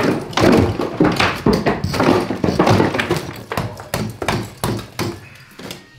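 Claw hammer knocking old plaster off a brick wall: quick repeated blows, about two or three a second, with the plaster cracking away. The blows ease off near the end.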